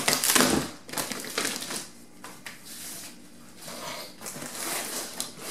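Clear plastic wrapping crinkling and rustling in irregular bursts as hands handle and open a plastic-wrapped parcel, loudest at the start.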